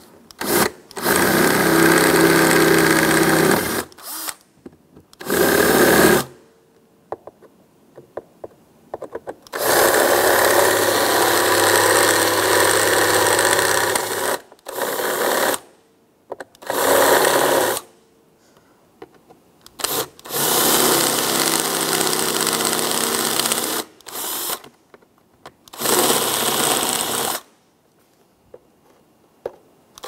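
Power drill with a twist bit drilling out the rivets that hold the back cover onto a glove box door. It runs in about eight bursts of a few seconds each, with short pauses between.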